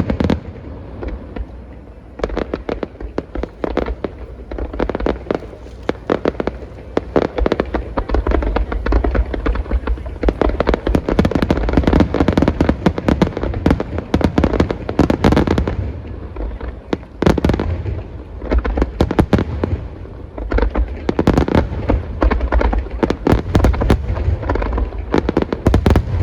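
A wide starmine barrage of aerial fireworks shells bursting in rapid succession. Many sharp booms and cracks come each second over a continuous deep rumble, with a few denser peaks along the way.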